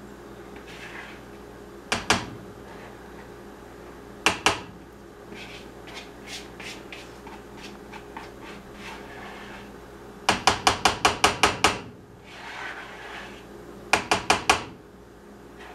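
A utensil knocking and scraping against a mixing bowl as cornbread batter is worked out of it into a pan. There are single sharp knocks, lighter clicks, then a quick run of about eight taps two-thirds of the way in and four more near the end.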